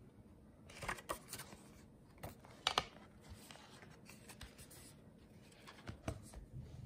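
Paper notebook pages being handled and turned: a few brief rustles and soft taps, the sharpest a little before the middle, with quiet room tone between.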